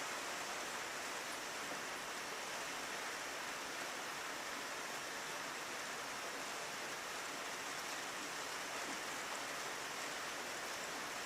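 Steady rain falling on a window, an even hiss of heavy rainfall without let-up.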